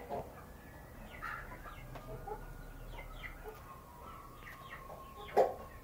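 Domestic hens clucking in short, scattered calls, with a single sharp knock near the end.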